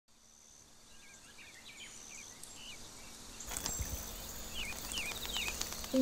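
Natural forest ambience fading in: small birds chirping in short, quick, pitch-bending calls over a light hiss, getting louder and fuller about halfway through.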